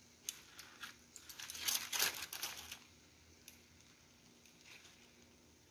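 Aluminium foil and baking paper crinkling as they are peeled back by hand, a run of rustles that is busiest about two seconds in and then dies away to a few faint ticks.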